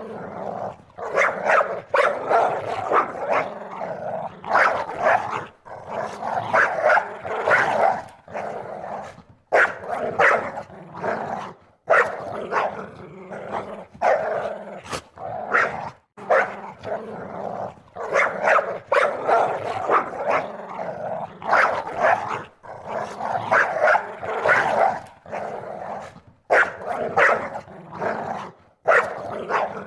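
Dogs barking over and over, in runs broken by short pauses every few seconds: a barking-dog phone ringtone.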